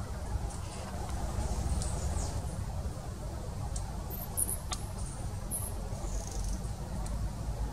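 Outdoor ambience: a steady low rumble with scattered short, high-pitched chirps from small wild animals.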